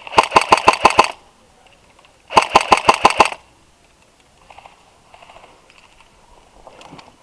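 Airsoft rifle firing two close bursts of about eight rapid shots each, roughly a second apart, at an enemy just called out in a doorway. Fainter short rattles follow later.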